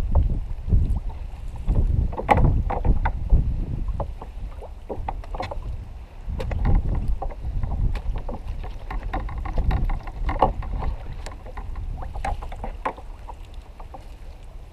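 Irregular knocks and splashes as a gaffed cobia thrashes in the water and is hauled against the side of a plastic fishing kayak, over a low rumble of wind on the microphone. The knocking is busiest in the first half and eases off toward the end.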